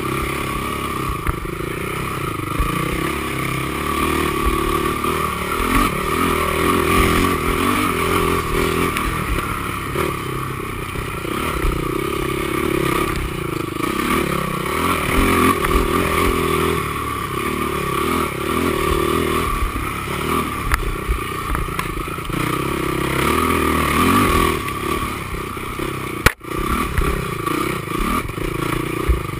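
Honda TRX450R quad's single-cylinder four-stroke engine running hard, its revs rising and falling continually under racing throttle, with rattling and scraping from the machine over rough ground. The sound cuts out for an instant near the end.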